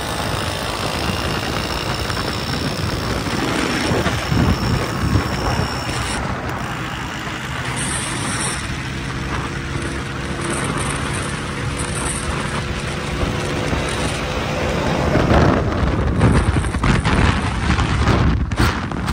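Motorcycle running along a road in traffic, with the steady noise of the ride. It grows louder about fifteen seconds in.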